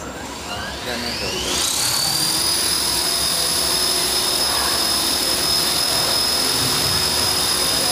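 Small electric RC helicopter spooling up: its motor and rotor whine rises in pitch over the first second or so, then holds at a steady high pitch.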